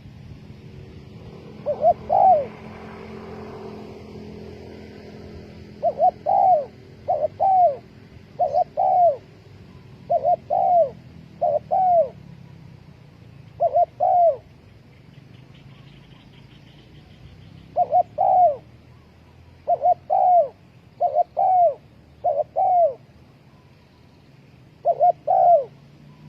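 Spotted dove cooing: about ten short phrases of two or three quick descending notes, repeated every second or two with a pause of a few seconds near the middle.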